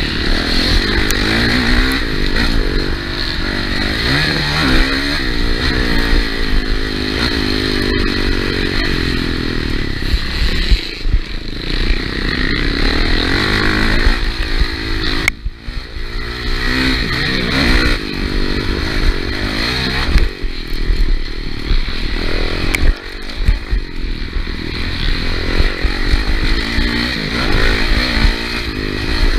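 Motocross bike engine at race pace, revving hard and easing off over and over as the rider accelerates, shifts and slows for turns, with its pitch repeatedly climbing and dropping. The throttle is briefly shut about fifteen seconds in and again a little after twenty seconds.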